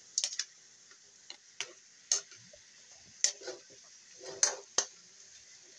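Metal ladle stirring pork pieces in a metal wok, giving a handful of sharp clacks and scrapes against the pan at irregular intervals, over a faint sizzle of the meat frying in its sauce.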